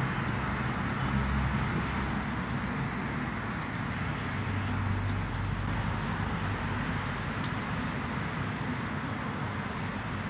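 Motor vehicle running steadily: a low engine hum under even road and wind noise.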